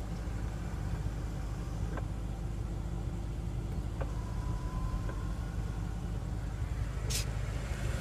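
Steady low rumble of an idling car engine, with a couple of faint clicks and a short hiss near the end.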